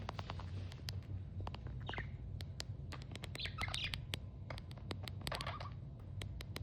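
Budgerigar giving a few short chirps, about a second and a half apart, over many sharp clicks and a steady low hum.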